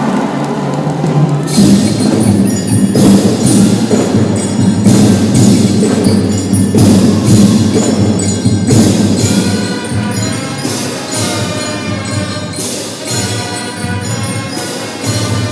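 School marching drum band playing: sustained lower notes with sharp, ringing struck accents repeating roughly once a second.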